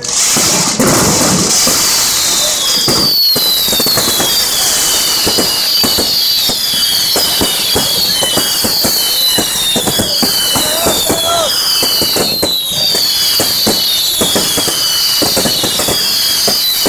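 Fireworks and firecrackers crackling and banging without pause as a falla monument burns. From about three seconds in, a high falling whistle repeats roughly once a second.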